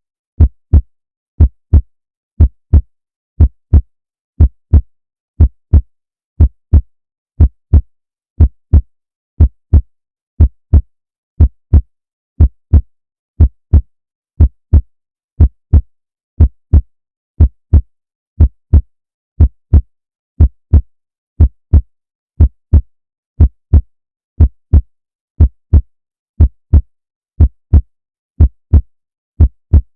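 Heartbeat: a steady lub-dub, two low thumps close together for each beat, about one beat a second, with silence between beats.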